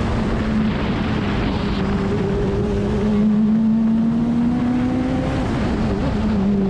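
Radical SR3 race car's engine heard on board in the open cockpit, pulling hard with its note climbing steadily for about four seconds, then falling away about five seconds in. Wind and road noise rush along with it.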